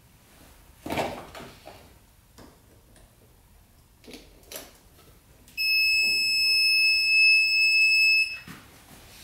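A single steady high-pitched electronic beep, held for nearly three seconds from about five and a half seconds in. Before it come a few clinks and rattles of battery cable clamps being handled.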